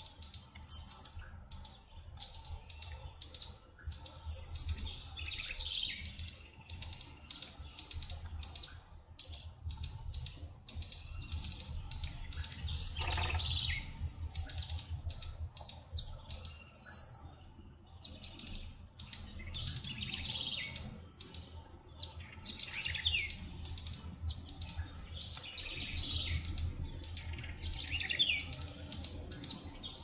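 Several birds chirping and calling in a dense run of short notes, with a few louder whistled notes, over a steady low rumble.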